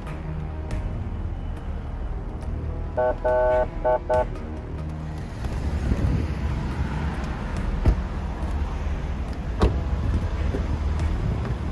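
Car engine and road rumble during a police pursuit, with four short horn blasts about three seconds in. Sharp knocks follow near the eight- and ten-second marks.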